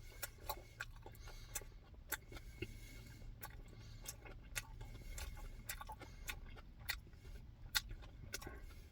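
Close-miked eating sounds: scattered sharp mouth clicks and smacks while chewing, irregular at about one or two a second, over a steady low hum.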